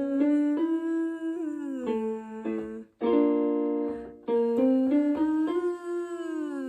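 A gentle vocal exercise sung on a buzzing 'vvv' sound over piano: the voice steps up note by note to the fifth, then slides down to the root, twice. It is a soft, semi-occluded exercise meant to ease a raspy or croaky voice.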